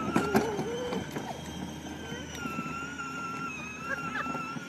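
Electric ride-on toy car's motor and gearbox whining steadily as it drives, the pitch wavering slightly.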